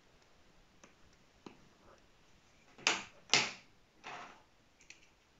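Stylus tip tapping and drawing on the glass touchscreen of a Lenovo Yoga C740: a few faint ticks, then two louder short knocks about half a second apart around three seconds in, and a softer one after four seconds.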